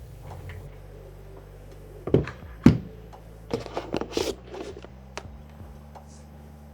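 Two hard knocks about half a second apart, then a quick run of clicks and taps: a mechanical keyboard being handled. A low steady hum of background music runs underneath.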